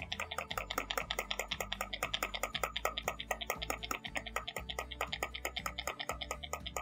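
Utility knife blade scraping back and forth across a smartphone's Gorilla Glass 3 screen: a fast, even run of short scratching strokes, several a second.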